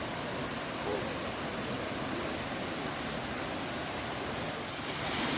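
Steady rush of water in a mountain stream. About five seconds in it gets louder and brighter.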